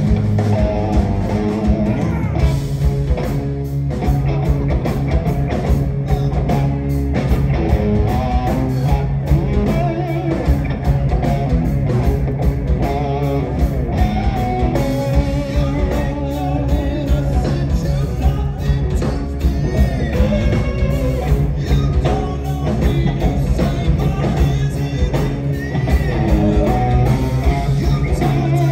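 Live hard rock band playing at full volume through a PA: distorted electric guitars, bass and drums, with a male voice singing. Heard from within the audience on a phone's microphone, with the low end heavy and dense.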